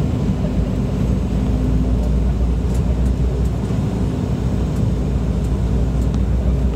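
Steady rumble of a jet airliner's engines and airflow heard inside the cabin from a window seat over the wing, with a constant low hum, as the plane descends on approach to land.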